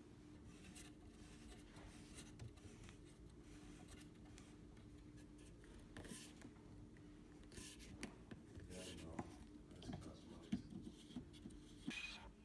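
Faint scraping and small clicks of hands handling parts and tools, over a steady low hum.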